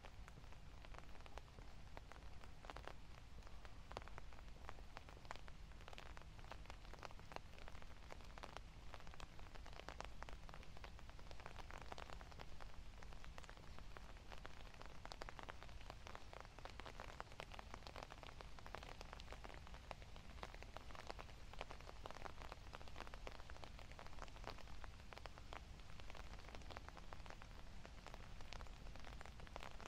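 Light rain pattering, with many small sharp drops landing close by at irregular moments over a low steady rumble.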